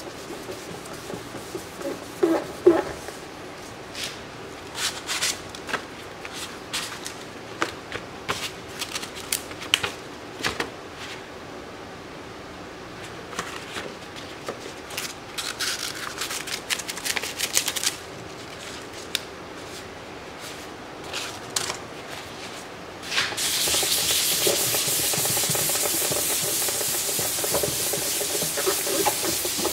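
Scattered taps and rustles of pads being handled and the surface being wiped. About three-quarters of the way in, a P220 sanding pad starts rubbing over cured epoxy resin, a steady scratchy hiss of hand sanding that scuffs the glossy surface ahead of a flood coat.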